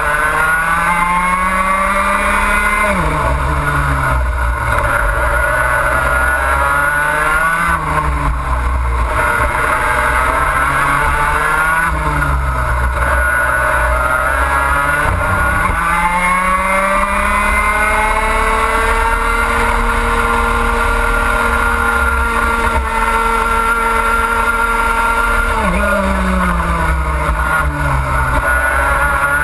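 Two-stroke racing kart engine at full throttle. Its pitch climbs along the straights and drops sharply when the driver brakes for corners: several short climbs, then one long climb that ends in a sharp drop near the end. Wind rumbles on the onboard microphone throughout.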